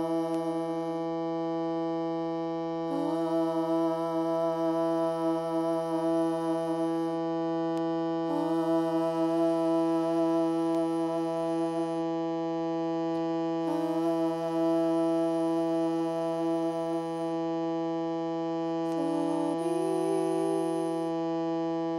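Hand-pumped harmonium holding a steady low drone while slow melody notes change about every five or six seconds.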